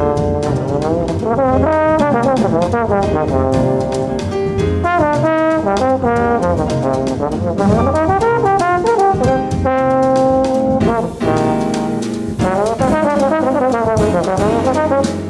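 Bass trombone playing a jazz solo line over a rhythm section of double bass and drums with cymbals keeping time. There is a brief break in the line about eleven seconds in.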